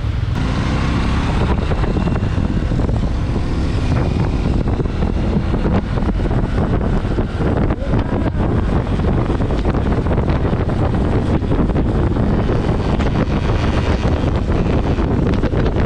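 Wind buffeting the microphone of a moving Honda Super Cub motorcycle, steady and loud, with the motorcycle's running beneath the wind.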